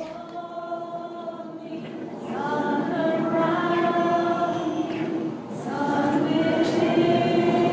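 A group of voices singing together on long held notes, in three drawn-out phrases with short breaths between.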